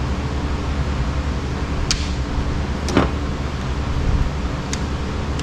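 A steady mechanical drone with a low hum, with a few short clicks about two, three and nearly five seconds in.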